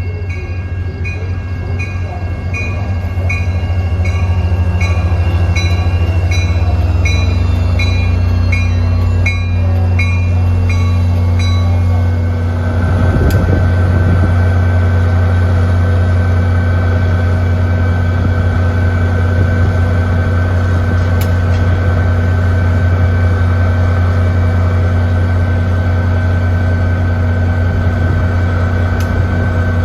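NJ Transit diesel train with an EMD locomotive arriving: a loud, steady deep engine drone, with a bell ringing about every 0.7 seconds for roughly the first twelve seconds. After that, steady high-pitched tones run over the engine.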